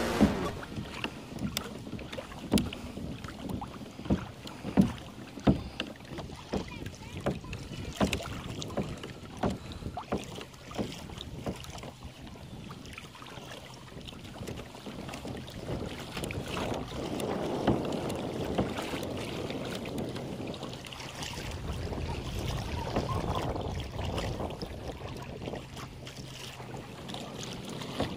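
Lake water slapping and splashing against a kayak hull, in irregular sharp splashes, with a softer rushing of water or wind later on.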